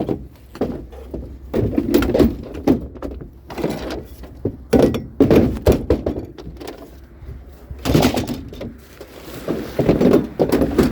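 An irregular series of thumps and knocks, several a second at times.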